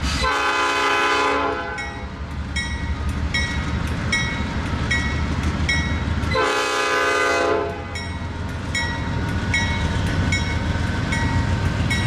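Norfolk Southern diesel freight locomotive sounding two long horn blasts, over its engine's steady low rumble. A bell dings about twice a second throughout.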